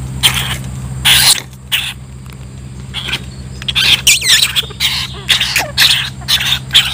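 A coconut rat caught in a wire cage trap squeaking in a run of short, high squeals, a few of them gliding in pitch. A low motor hum in the background stops about a second in.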